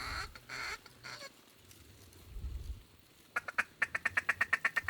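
Duck quacking: a few raspy calls at the start, then from about three seconds in a fast, even run of short quacks, about nine a second.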